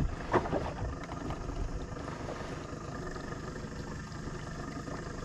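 Small fishing boat's motor idling with a steady low rumble, with a couple of light knocks in the first half-second.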